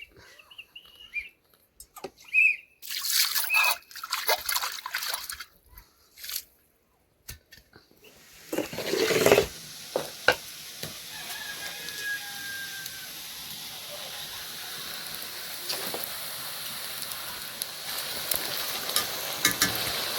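Running water with a steady rush, starting about eight seconds in, after several seconds of scattered short rustles and a few brief chirps.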